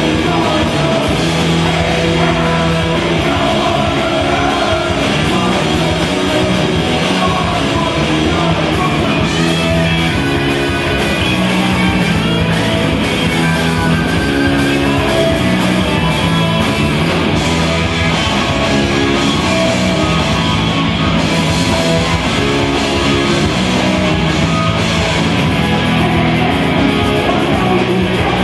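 Live rock band playing loud and without a break: electric guitars, bass guitar and drum kit, with a singer at the microphone.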